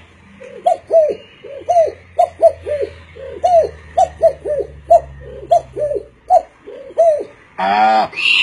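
A man imitating a pigeon's cooing with his voice: a quick run of short coos, each rising and falling in pitch, roughly three a second. Near the end a longer, louder voiced call begins.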